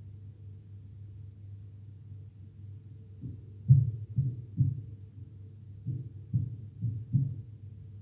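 A canary pecking at seeds in a plastic feeder cup makes dull, soft taps. There are two runs of about four taps, one starting about three seconds in and another near six seconds, over a low steady hum.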